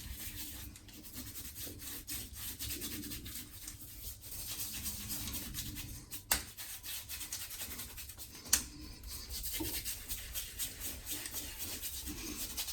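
Hands rubbing pre-shave gel into stubbly facial skin, a continuous fast scratchy rubbing. Two sharp clicks stand out, about six and eight and a half seconds in.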